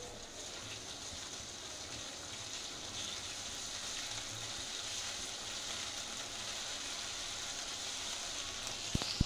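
Chopped onions and ginger-garlic paste sizzling in hot oil in an aluminium kadai while being stirred with a wooden spatula: a steady frying hiss as the raw smell of the paste cooks off, with a few sharp knocks near the end.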